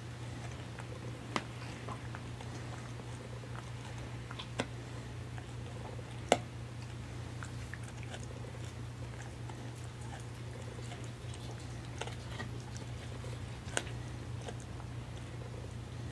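A dog gnawing a hard, crunchy Purina Busy Chewnola chew treat: scattered clicks and crunches of teeth on the treat, the sharpest about six seconds in, over a steady low hum.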